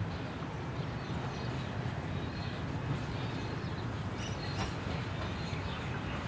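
Small steam tank locomotive rolling slowly, a steady low rumble with the hiss of its steam. Short high bird chirps come in a few times about four seconds in.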